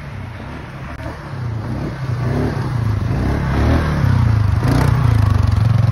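Polaris ATV engine running, getting louder from about two seconds in as the quad is throttled up.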